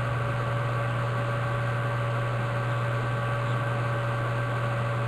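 Steady electrical hum with an even hiss underneath, unchanging throughout.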